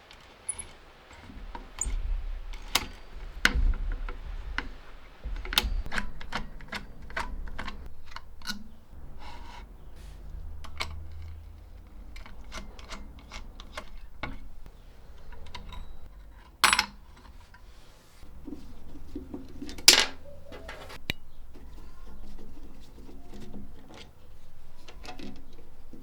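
Small tin and aluminium parts of a Felix M mechanical calculator clicking, tapping and clinking against each other and against metal tools as it is worked on by hand. The clicks come at an irregular pace, with two louder knocks about two-thirds of the way through, over a faint low hum.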